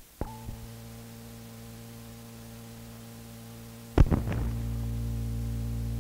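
Steady electrical mains hum on an old mono reel-to-reel tape recording, with small clicks right at the start. About four seconds in comes a sharp click, after which the hum is louder: a point where the original recording was paused and restarted.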